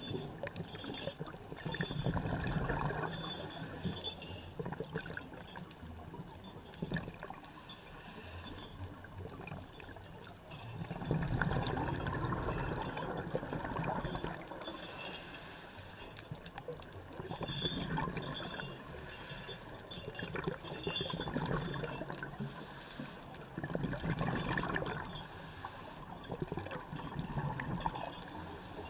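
Underwater sound of scuba divers' exhaled bubbles bubbling and gurgling. The bubbling swells louder every few seconds, with each breath out.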